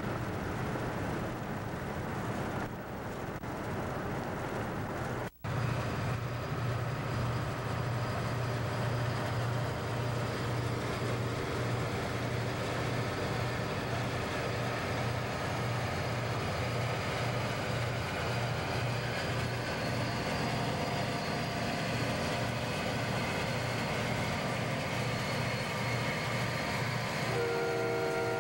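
Road and wind noise inside a moving car, then after a sudden cut a Burlington Northern diesel freight locomotive running close by, its engine giving a steady low throb. Near the end the locomotive's air horn starts to sound a chord of several notes.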